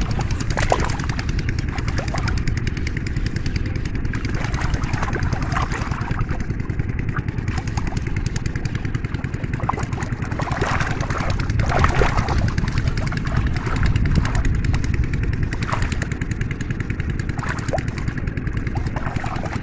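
A small engine running steadily, with a dense, even ticking rumble; faint voices now and then.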